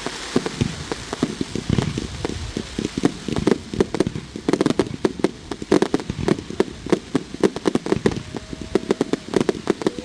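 Fireworks going off in a rapid, dense string of bangs and crackles, growing thicker from about four seconds in.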